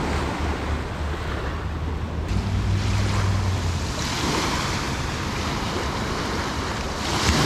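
Small waves breaking and washing up a pebbly shore, swelling about four seconds in and again near the end, with wind rumbling on the microphone.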